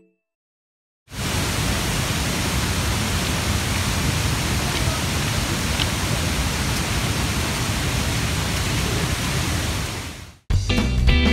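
Steady, even rushing of water, starting about a second in and cutting off suddenly near the end.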